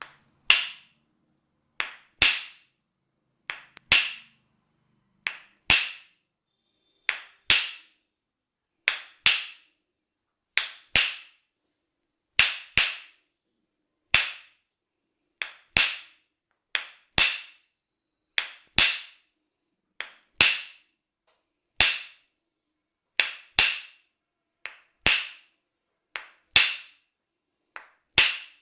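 Sharp percussive massage strikes, mostly in pairs of a lighter tap followed by a harder hit, about one pair every second and a half to two seconds, each with a short ringing tail.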